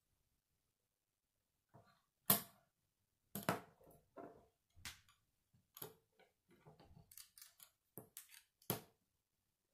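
K'nex plastic rods and connectors clicking and knocking as they are snapped together and handled. A string of sharp clicks starts about two seconds in; the loudest come near the start and just before the end.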